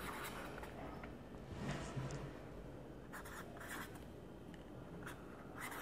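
Felt-tip marker writing a word by hand on paper: faint scratching strokes, coming in short runs with brief pauses between them.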